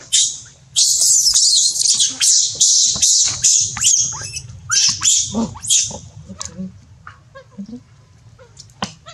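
Baby monkey screaming: a rapid series of shrill, high-pitched screams, two or three a second, that fade after about six seconds into a few fainter squeaks.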